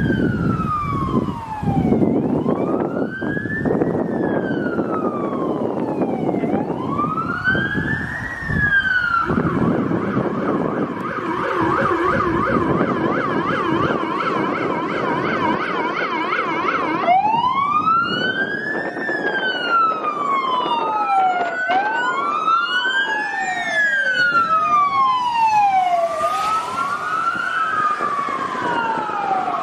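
Sirens of a police escort and ambulance. They wail in slow rising and falling sweeps, switch to a fast yelp about ten seconds in over a deep low-frequency siren tone, then become several wails overlapping out of step after about seventeen seconds.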